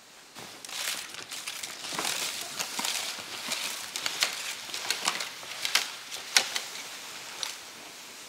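Snowshoe footsteps crunching through snow, with a sled dragging behind, in an uneven run of crackling steps and sharp clicks that fades out near the end.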